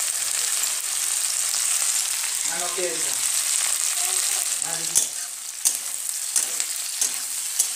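Green capsicum and onion pieces sizzling steadily in hot oil in a steel kadai, being lightly fried. A steel spatula stirs them, clicking and scraping against the pan several times in the second half.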